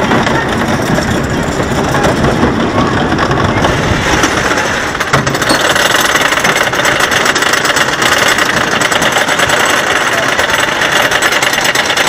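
Wooden roller coaster's chain lift hauling the train up the lift hill: a steady, rapid mechanical clatter of chain and anti-rollback dogs. The sound briefly dips and turns brighter about five seconds in.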